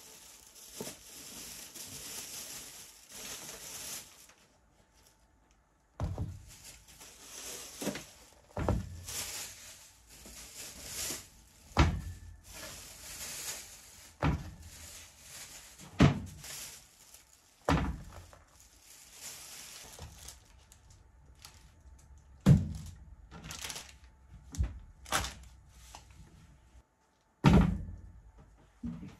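Lidded plastic food bowls and a large plastic drink bottle set down one by one on a wooden table: a series of separate dull thunks, about a dozen, with faint crinkling of plastic packaging between them.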